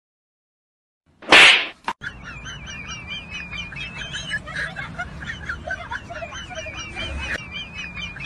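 A short, loud whoosh about a second in, then a steady run of high, warbling chirps like birdsong.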